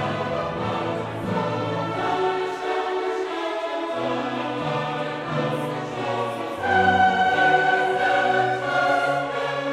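Background music: a choir singing long held notes with an orchestra, swelling louder about seven seconds in.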